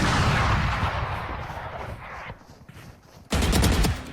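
A loud blast-like sound dying away over about two seconds, then a second sudden loud burst a little over three seconds in that lasts under a second.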